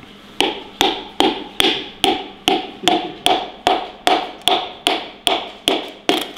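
A hammer striking metal in a steady rhythm: about fifteen even blows, roughly two and a half a second, each with a short ring.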